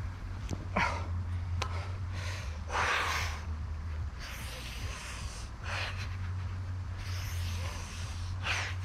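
Heavy, forceful breathing of a man straining through pull-up reps, a hard breath about every second. A couple of sharp clicks come in the first two seconds, over a steady low hum.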